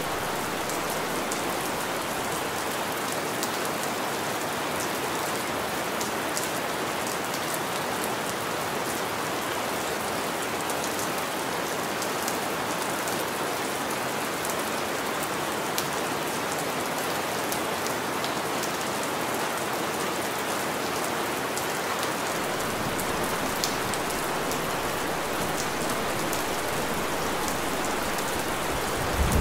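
Steady rain falling, with scattered sharp ticks of individual drops striking a surface. A brief thump comes near the very end.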